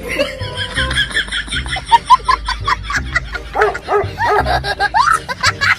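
A dog barking repeatedly over background music.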